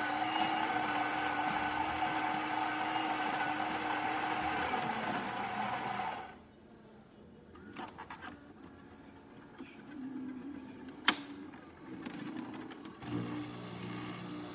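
Saeco superautomatic espresso machine's built-in grinder running steadily at the start of an espresso cycle, then stopping suddenly about six seconds in. After that come quieter mechanical sounds from the machine, with a sharp click about eleven seconds in and a brief low hum near the end.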